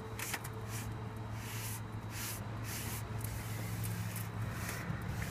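An oil-soaked cloth sock rubbed back and forth along weathered wooden boards, staining the wood with used motor oil: soft swishing strokes about two or three times a second. A steady low hum runs underneath.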